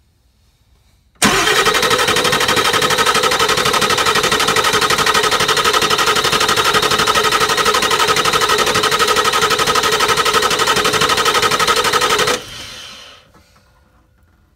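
Starter cranking a 7.3L PowerStroke V8 diesel over without it firing, with the relay jumped to prime the fuel system after a lift pump replacement. A loud, steady, fast even rhythm starts about a second in and lasts about eleven seconds, then winds down near the end.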